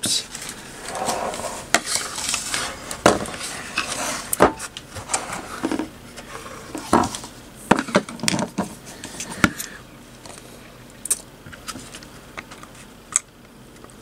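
Metal-cased 3.5-inch IDE hard drives knocking and clattering as they are handled and set down on a wooden desk: a string of sharp knocks, thinning out to a few isolated clicks after about ten seconds.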